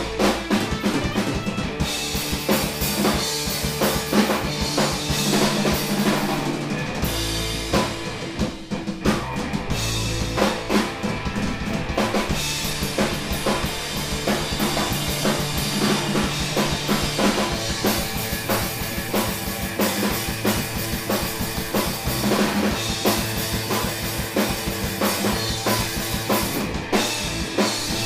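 Instrumental rock band playing live in a small room: a Pearl drum kit with bass drum, snare and cymbals, and electric guitars, with no vocals.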